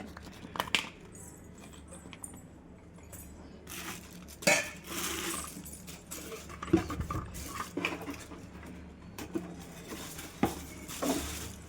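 Hands handling a popcorn maker's parts and packaging: scattered small clinks, taps and knocks, with a longer rustle about four and a half seconds in.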